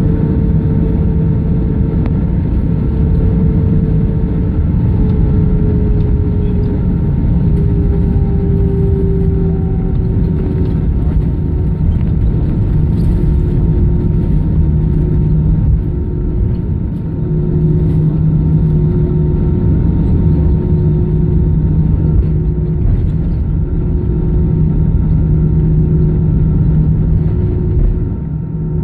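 Airbus A319 taxiing, heard from inside the cabin over the wing: a steady low engine rumble and hum, with one engine tone sliding down a little in pitch in the first third.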